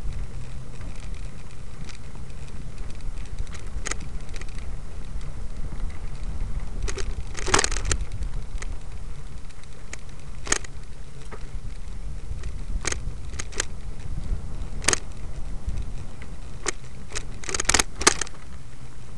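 Steady low rumble of wind and handling on a moving handheld camera's microphone, with scattered sharp snaps and crackles, as of twigs and leaves brushing and breaking, coming in small clusters about seven seconds in and again near the end.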